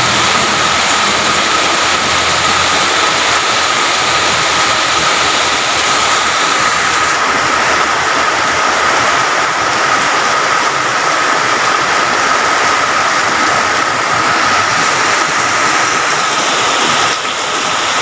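Heavy rain and rushing floodwater making a steady, loud hiss, with a thin steady high tone over it.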